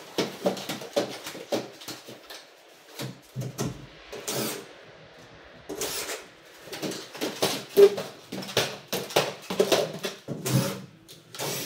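Irregular knocks, bumps and clatter of a worker climbing onto a work platform and handling tools, with a quieter stretch of about a second roughly five seconds in.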